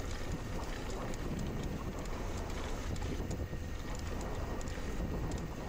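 Wind buffeting the microphone of a camera on a mountain bike descending a bike-park trail, a steady rumble with faint rattling clicks from the bike and trail.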